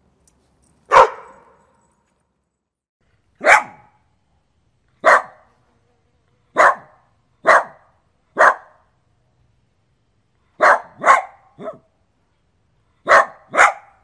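Dog barking in single sharp barks, one to two seconds apart, about eleven in all, with quick pairs later on.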